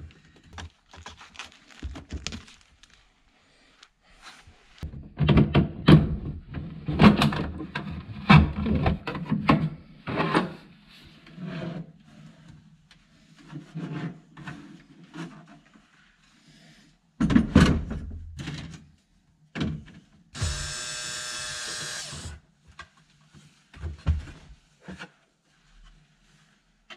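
Hard plastic trim of a Land Rover Discovery 1's center console knocking and clattering as it is worked loose and pulled out, with a louder thump about halfway through. About twenty seconds in, a power tool whirs steadily for about two seconds.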